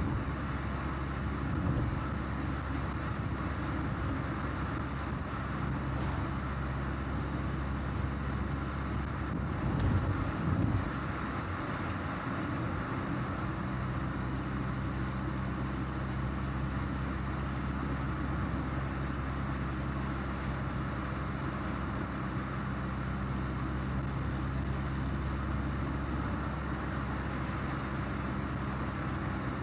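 1984 VW Golf Mk2 GL's carburetted four-cylinder engine running steadily under way, with road noise. About ten seconds in the engine note breaks off briefly, with a short loud swell, and settles again a few seconds later.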